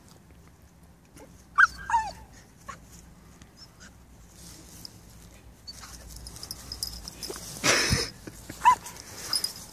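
Two dogs at play, a Bouvier des Flandres puppy and a Cavalier King Charles Spaniel: a few short, high yelps that slide down in pitch about two seconds in, another near the end, and a brief scuffling rustle about eight seconds in.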